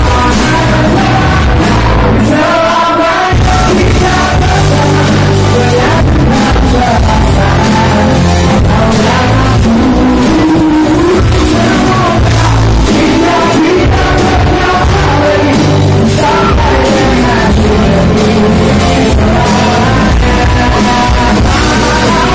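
Live concert music: a male singer with an amplified pop-rock band, loud and steady.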